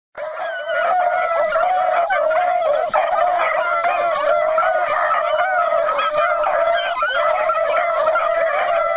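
A pack of beagles baying together on a rabbit's scent, many howls overlapping into one continuous chorus that starts suddenly.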